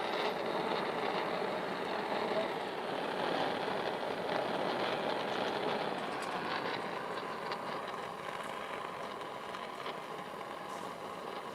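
Restored antique pressure blowtorch burning with a steady hiss, easing off slightly over the last few seconds.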